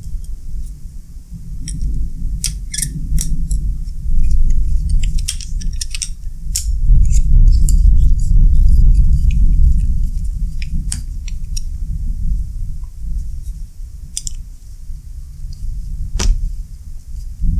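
Hands handling a chrome ratchet head while a thin pointed tool works at it: scattered small metallic ticks and scrapes, with one sharper click near the end, over a low rumbling handling noise.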